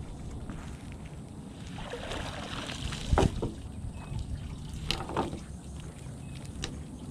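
A cast net hauled up out of the water, with water spattering and streaming off the mesh. About three seconds in, the wet net and its lead weights land hard on wooden dock planks, followed by a couple of lighter knocks.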